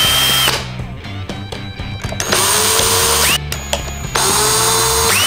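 Cordless drill/driver backing out small screws from a plastic drone frame, in three short runs: one brief at the start, one about two seconds in, and one from about four seconds in. Each run ends with a motor whine that climbs in pitch.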